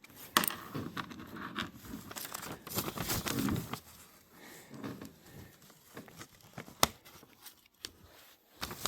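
Paper rustling and crinkling with small irregular clicks as a paper target is handled and a pellet is pushed into a shot hole as a scoring plug, with one sharper click about seven seconds in.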